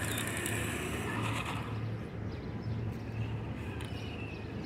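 Toy RC truck's small electric motor whining as it drives across asphalt, the thin whine shifting in pitch with its speed, over a steady low hum.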